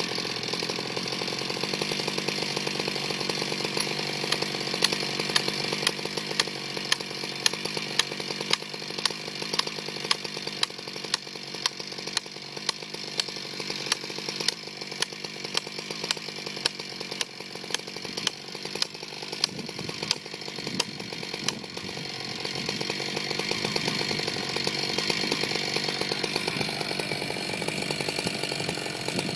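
Chainsaw running steadily as it cuts through a tree, with a string of sharp clicks through the middle.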